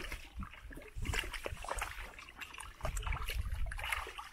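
Feet squelching and sloshing through wet mud and shallow muddy water, with small splashes and wet smacks.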